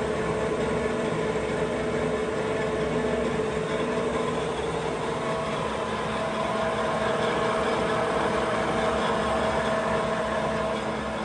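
LeBlond Makino Regal engine lathe running under power, its spindle and chuck turning, with a steady gear whine. A higher whine comes in about five seconds in and drops away near the end.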